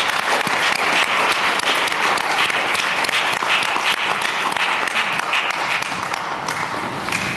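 Audience applauding: many people clapping together in a dense, steady patter that thins a little near the end.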